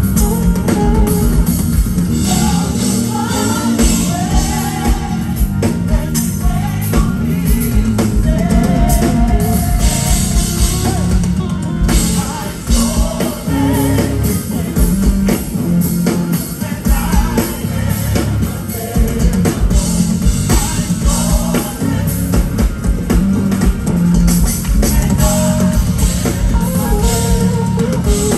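Live band playing, with drum kit and guitar, and a voice singing a melody over them.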